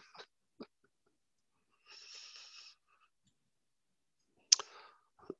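Near silence through a headset microphone, broken by a faint breath about two seconds in and, near the end, a mouth click followed by a short intake of breath.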